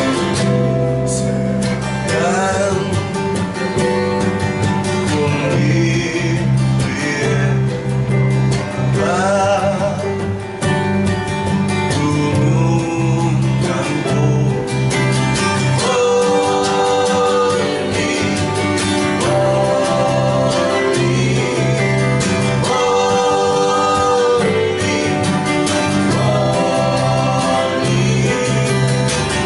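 A song sung to acoustic guitar: steady strummed chords, with the voice coming in about two seconds in and singing phrases with vibrato.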